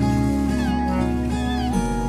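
Background music with held notes, and a cat meowing about twice over it.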